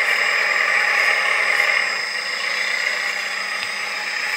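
1/14-scale RC articulated dump truck driving, its onboard sound module playing a simulated diesel engine running steadily. It grows slightly quieter about two seconds in.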